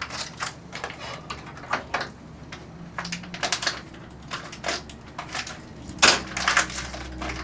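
Foil packaging of a fiberglass casting roll being handled and opened, crinkling in irregular crackles, loudest about six seconds in.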